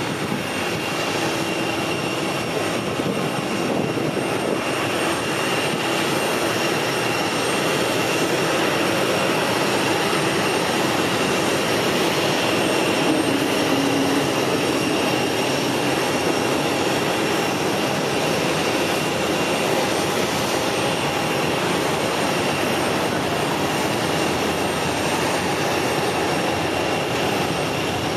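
Jet airliner engines running: a steady rush of noise with a high, even whine over it, swelling slightly about halfway through.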